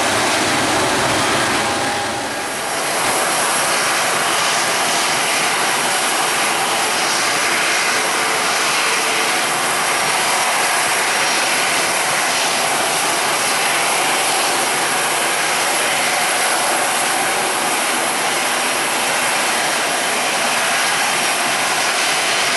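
The twin GE90 turbofans of a Boeing 777 freighter at takeoff power, a loud, steady jet rush as it rolls and climbs away, with a brief dip in level about two seconds in.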